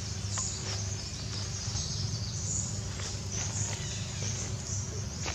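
Outdoor ambience: a steady high insect buzz that swells and fades, over a low steady hum, with a few faint clicks.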